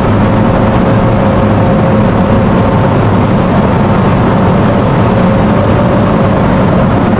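Steady, loud drone of a moored container ship's onboard machinery, with several steady hum tones over an even rush of noise.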